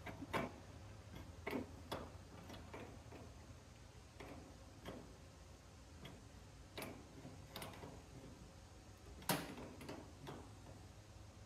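Faint, irregular clicks and light taps of small air-line fittings being handled while Teflon tape is wrapped on their threads, the sharpest tap about nine seconds in, over a faint low hum.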